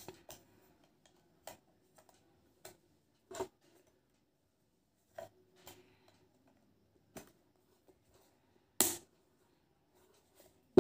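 Scattered clicks and taps of hard plastic parts being handled and pushed together while reassembling a Boat Stone 200 Bluetooth speaker: about eight separate knocks, the loudest near the end.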